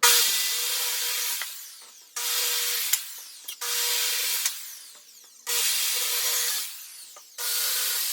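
Power saw cutting through wooden boards: five cuts of about a second each, each starting abruptly and trailing off, with short pauses between.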